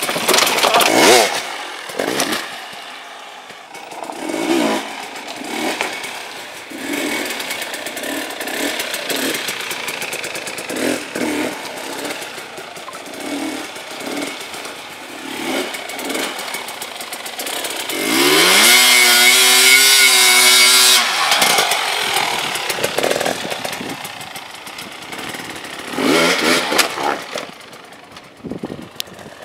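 GasGas dirt bike engine revving in repeated short bursts of throttle, with a long high rev that climbs and holds for about three seconds about two-thirds of the way through. There are loud blips about a second in and again near the end.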